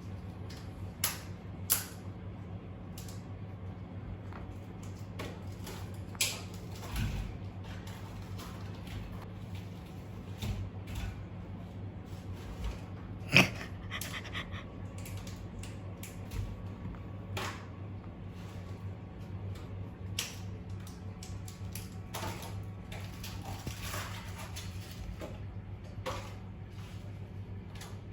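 Scattered light clicks, taps and knocks over a steady low hum, with one sharp knock about 13 seconds in.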